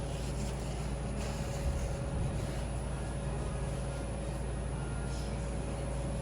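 Steady mechanical hum with a constant high tone running through it, unchanging throughout.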